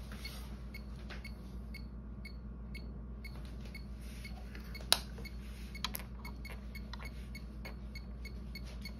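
Steady low hum with faint, regular ticking. A sharp small click comes about five seconds in, with lighter clicks about a second and two and a half seconds after it.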